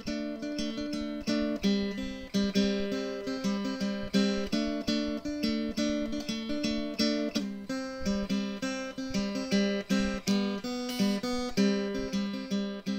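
Outro music: a strummed guitar playing chords in a steady rhythm.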